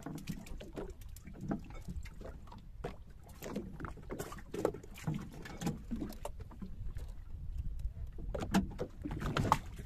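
Water lapping against a small fishing boat, with scattered short knocks and clicks of gear being handled on board.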